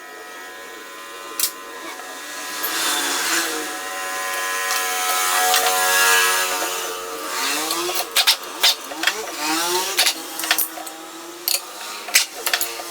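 Hand tools clicking and knocking against metal gearbox parts, with a burst of sharp clicks in the second half, over a hiss and a wavering pitched tone in the background.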